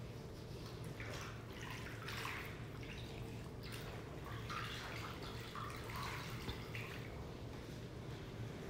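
Water splashing and dripping in a small bowl as a wet cloth is dipped in, squeezed and lifted out, in short irregular splashes over a low steady hum; the cloth is being used to rinse exfoliating scrub off a foot.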